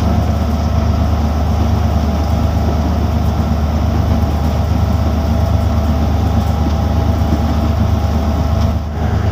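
Diesel-electric locomotive running under way, a steady low engine drone with some higher steady tones over it, dipping briefly near the end.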